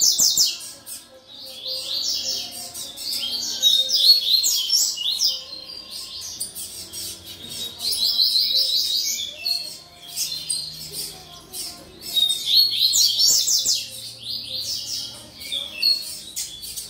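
Young double-collared seedeater (coleiro) singing in several bouts of fast, high repeated notes, with short pauses between the phrases.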